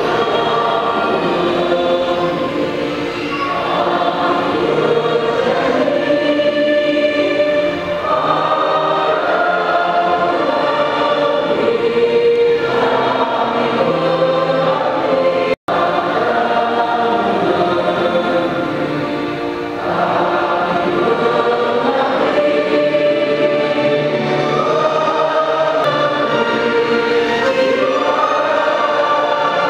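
A group of people singing a song together, many voices at once. The sound cuts out for an instant about halfway through.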